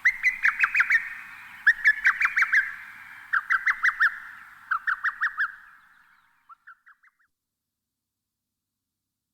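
A songbird calling in repeated phrases of five or six quick, sharp notes, a phrase about every second and a half, each trailed by an echo. The phrases grow fainter and stop about seven seconds in.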